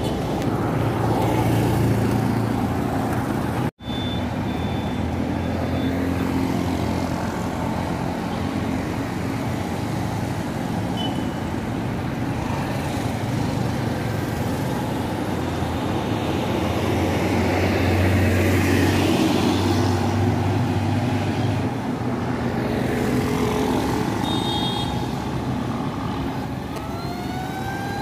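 Road traffic: a steady engine hum with motorcycles and vehicles passing, swelling louder for a few seconds past the middle. The sound cuts out for an instant about four seconds in.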